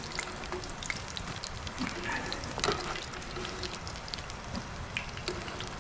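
Hot oil sizzling in a small pot of frying fries over a wood campfire, with scattered sharp pops and crackles.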